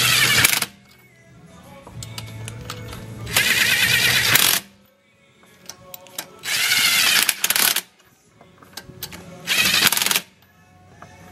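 Cordless DeWalt 20V MAX impact wrench running lug nuts onto a wheel and snugging them down. It goes in four bursts of about a second each, roughly every three seconds.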